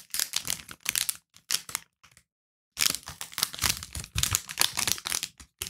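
Milka Oreo snack wrapper crinkling and tearing as it is opened, in quick irregular rustles with a short pause a little over two seconds in.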